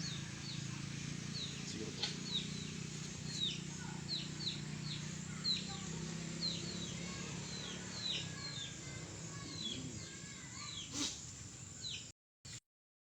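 Small birds chirping over and over, short falling chirps about two a second, over a steady low background hum. There is a single click near the end, then the sound cuts off abruptly.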